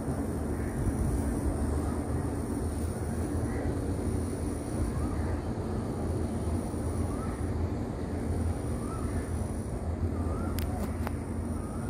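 A steady low rumble with a bird's short chirps repeating every second or two, over a faint high steady whine. Two sharp clicks come near the end.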